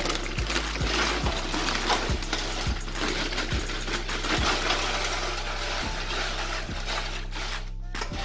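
Tostitos tortilla chips poured out of the bag, a continuous dry clattering rattle, over background music with a steady bass beat.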